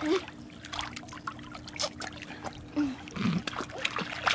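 Light splashing and trickling of pool water as a baby paddles and is moved about in a swimming pool, with a faint steady hum underneath.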